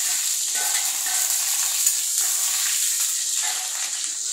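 Hot oil sizzling steadily in a kadhai as green chillies fry with browned garlic and panch phoron, with a metal spoon stirring through it and one brief click about two seconds in.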